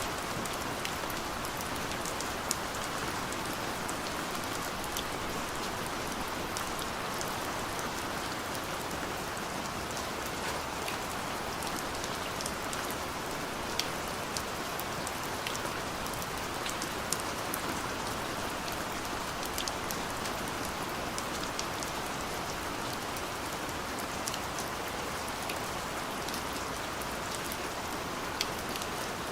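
Steady rain falling on a surface, a constant even hiss with individual drops ticking sharply here and there.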